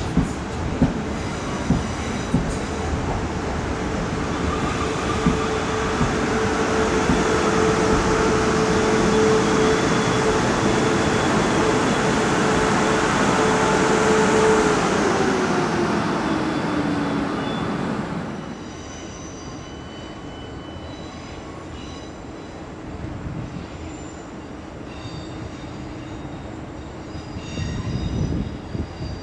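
A train running through the station: a loud rumble with a few sharp clicks at first and a steady whine that drops in pitch over a couple of seconds about halfway through, as the train slows. After about 18 seconds the noise falls away suddenly, leaving a quieter background with faint high squeaks.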